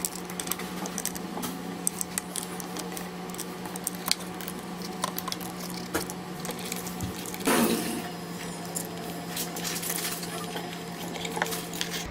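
Many small clicks, taps and light scrapes from parts and tools being handled on a workbench, over a steady low hum. A brief louder scraping rush comes about seven and a half seconds in.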